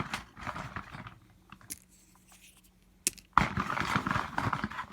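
Plastic toy parts and their packaging being handled: rustling and crinkling, quieter in the middle, with a sharp click about three seconds in followed by louder crinkling.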